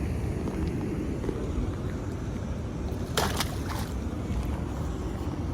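Steady wind rumble on the microphone over rushing water, with a short burst of noise about three seconds in.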